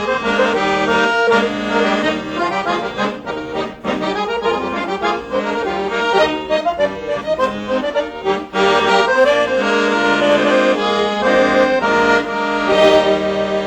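Accordion playing a traditional tune, with several notes held together in chords.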